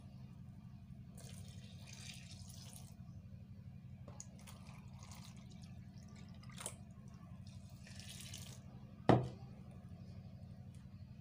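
Water pouring into a plastic bowl in several short runs, with drips. A sharp knock about nine seconds in is the loudest sound.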